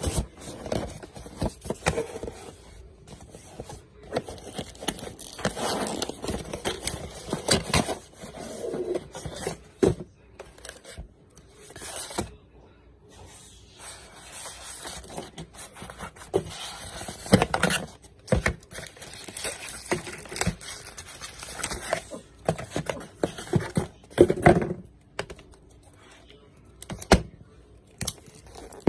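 Cardboard shipping mailer being opened and handled by hand: irregular scraping and rustling of cardboard, with sharp clicks and knocks as the boxes are moved.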